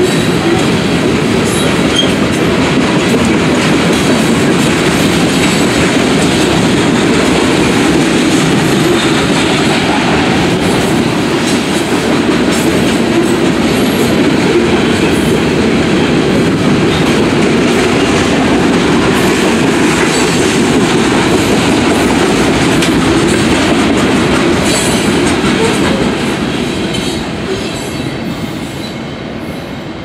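CSX freight train of covered hopper cars rolling past: a steady rumble and clatter of steel wheels on the rails, which fades over the last few seconds as the end of the train goes by.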